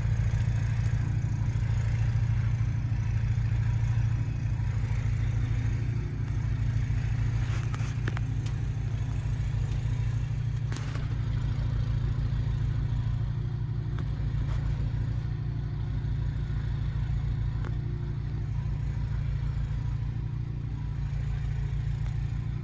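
An engine running steadily, a low, evenly pulsing rumble, with a few faint clicks near the middle.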